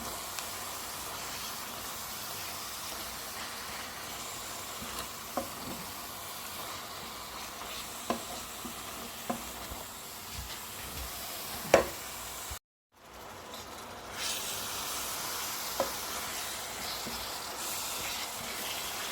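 Blended pepper and tomato paste frying in oil in a pot: a steady sizzle with a few sharp knocks. The sound breaks off for a moment about two-thirds of the way through, then the sizzle resumes.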